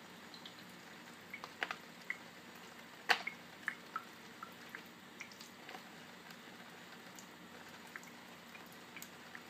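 Faint steady trickle of a thin stream of tap water into a kitchen sink, with scattered drips and soft wet squishes and clicks as a roasted pepper is peeled and seeded by hand. The sharpest click comes about three seconds in.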